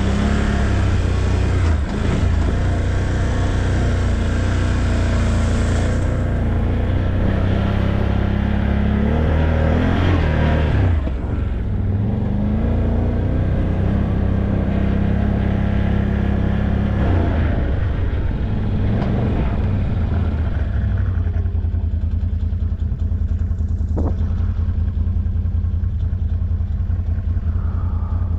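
ATV engine running as it is ridden, the revs rising and falling a few times in the middle, then settling to a steady run for the last several seconds.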